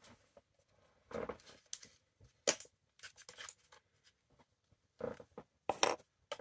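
Short, scattered rustles and clicks of something small being handled in the hands, in irregular bursts about a second apart.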